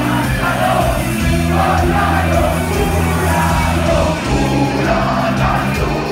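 Live rock band playing loud: electric guitars, bass and drums under a shouted lead vocal.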